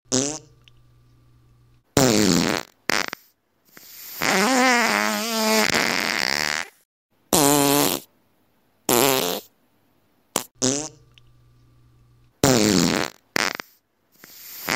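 A string of farts, about eight in all, with short silent gaps between them. Most are short and buzzy; one about four seconds in is drawn out for about three seconds, its pitch wobbling.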